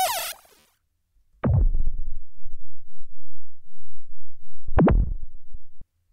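Sample transformed with CDP sound-design processing, played back: a short bright noisy burst with gliding tones at the start, then after a second's gap two deep booming hits about three seconds apart, each opening with a fast downward pitch sweep, over a sustained low rumble that cuts off near the end.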